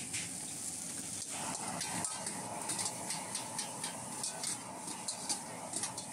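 Stir-frying in a wok: food sizzling steadily, with a quick run of short clinks and scrapes of a utensil against the wok from about two and a half seconds in.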